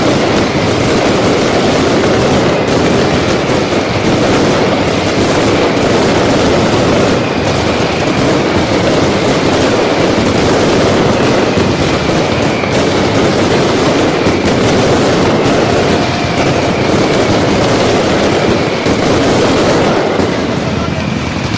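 Fireworks display: an unbroken barrage of firework explosions going off in rapid succession, densely overlapping, easing slightly near the end.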